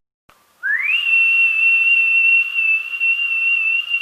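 One long whistle calling a cat: a single note that slides up under a second in, then holds high and steady to the end.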